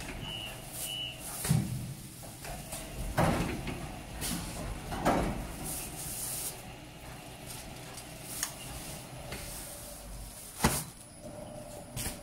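Quilt roll packing machine at work: irregular short mechanical clunks about every two seconds over a faint steady hum, with two short high beeps near the start.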